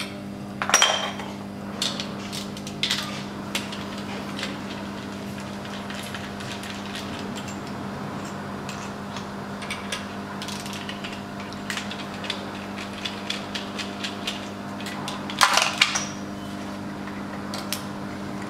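Hand tools and metal fittings clicking and clanking on a diesel engine's cylinder head as a compression-tester adapter is moved from one cylinder to the next. Louder clanks come about a second in and again near the end, with quick small ticks in between, over a steady low hum.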